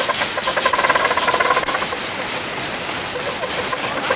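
A 7¼-inch gauge miniature steam locomotive running, its exhaust beating in a rapid, even rhythm over a hiss of steam escaping around the cylinders.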